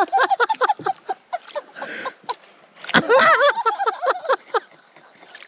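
A man laughing hard in two fits, with a single sharp knock about three seconds in.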